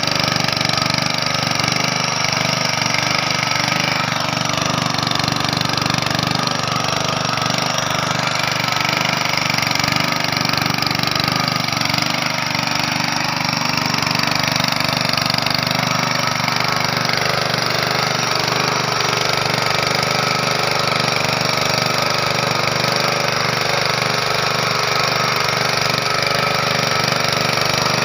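Honda GX160 5.5 hp single-cylinder four-stroke engine running steadily at a constant speed.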